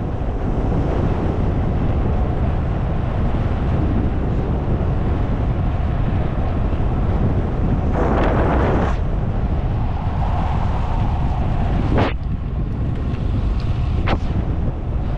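Wind buffeting the microphone of a camera on a moving road bike, a steady low rumble. A brief rushing noise about eight seconds in, and two sharp clicks near the end.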